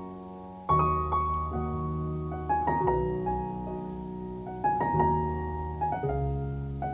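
Background piano music: single notes and chords struck every second or so, the loudest chord about a second in.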